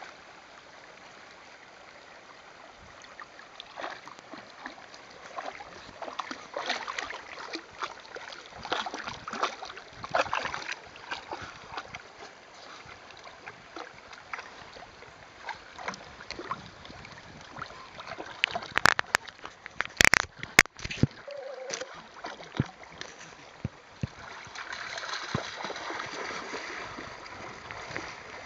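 Siberian husky pawing at the bottom of a shallow stream: irregular splashes and pebbles scraping and clicking under her claws, over the rush of the flowing water. A quick run of sharp, loud clicks comes about two thirds of the way through.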